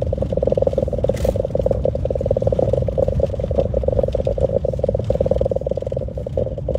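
Car engine running with a rapid, even pulsing buzz over low road rumble as the car drives slowly along a rough road, heard from inside the cabin.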